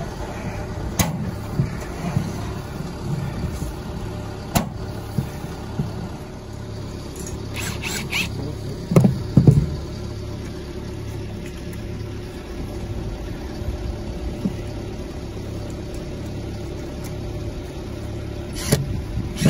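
Cordless drill driving screws to fasten standing seam roof panel clips, in two short bursts about nine seconds in, with scattered clicks and knocks of metal being handled over a steady low background rumble.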